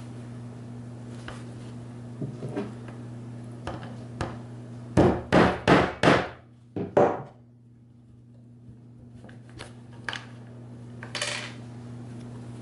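Hammer striking a suspender bachelor button's tack: a few light taps, then a run of four hard blows about five seconds in, two more just after, and a couple of lighter knocks near the end.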